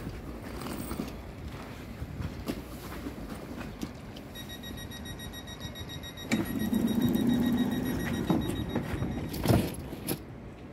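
Sm5 Stadler FLIRT electric commuter train standing at the platform. A steady high-pitched electrical whine comes in about four seconds in, and a low hum swells up about six seconds in and fades again. A few knocks fall in between.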